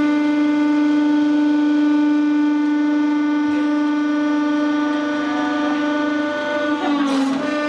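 Hydraulic press running with a loud, steady, high hum. Its pitch sags briefly near the end as the ram squeezes a toy flat under load.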